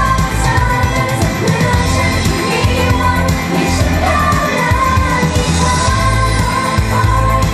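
Live idol-pop performance: a group of young women singing into handheld microphones over loud pop music with heavy bass.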